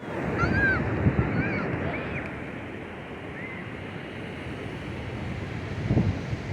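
Ocean surf rushing on the shore in strong wind, with gusts buffeting the microphone, heaviest near the start and again toward the end. A few short, high chirps sound over it in the first two seconds and once more a little later.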